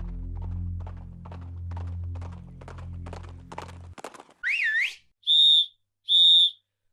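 A low droning music bed with evenly spaced clacks that quicken, cutting off abruptly about four seconds in. Then a shrill whistle slides up and back down, followed by two short, steady whistle blasts.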